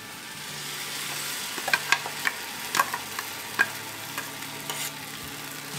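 Ground coconut masala paste going into a kadai of hot fried onions, sizzling with a steady hiss, while a steel ladle scrapes the paste out of a steel vessel with several sharp metal clicks.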